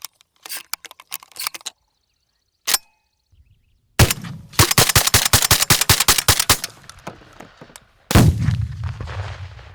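Gunfire: a few scattered sharp cracks, then a rapid string of shots over about two seconds, then one loud shot that echoes away.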